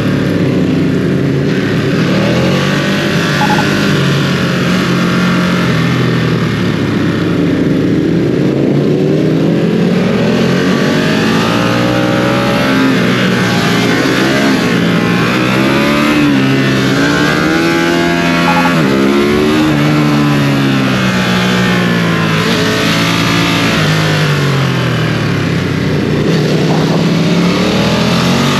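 Ducati Streetfighter V2's 955 cc L-twin engine on its stock exhaust, accelerating hard through the gears: its pitch climbs and drops again and again with each shift, over a steady rushing noise.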